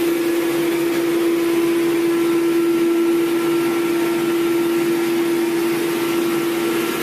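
Vacuum street sweeper truck working, its suction fan and engine making a loud, steady hum over a rushing noise, with a fainter higher tone joining about two seconds in.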